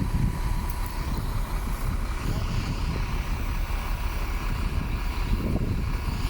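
Heavy diesel earthmoving machine running steadily, a continuous low rumble.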